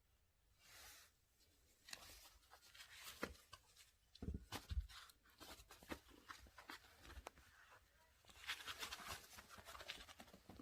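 Faint scattered taps, scratching and rustling, with a couple of dull thumps about four seconds in and a quick run of light clicks near the end: a toy poodle playing with a ball toy, its paws and the toy knocking and scraping on the floor.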